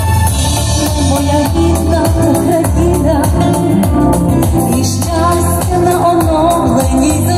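A woman singing a pop song into a microphone, amplified through a portable PA speaker over a recorded backing track with a steady bass line and beat.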